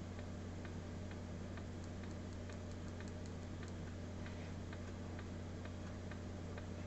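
Faint light ticks, about two or three a second and not quite regular, over a steady low hum.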